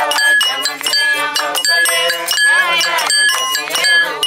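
Group of Giriama singers singing a traditional song, with hand clapping and a ringing metallic clink struck repeatedly in time.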